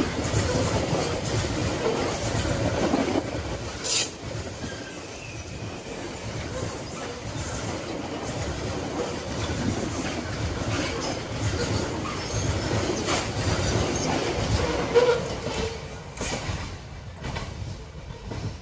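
Coal freight train wagons rolling past on the rails: a steady rumble and clatter of wheels with scattered clacks, and a thin high wheel squeal over the first several seconds. The noise dies down near the end as the train moves off.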